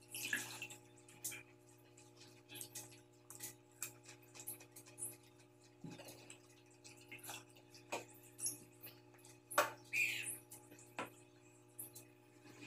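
Close-up eating sounds: a man chewing and smacking with his mouth as he eats water-soaked leftover rice by hand, with scattered wet clicks, squelches from his hand in the rice, and a louder slurp about ten seconds in, over a steady low hum.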